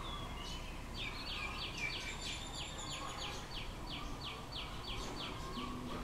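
A bird calling a quick series of short descending notes, about three a second, for several seconds over steady background hiss.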